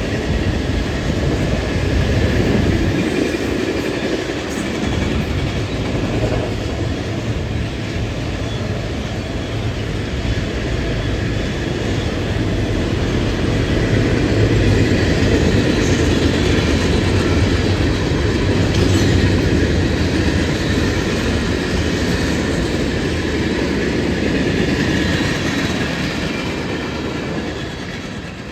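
A train running past close by, a steady loud rumble of wheels on rail that starts to fade away near the end.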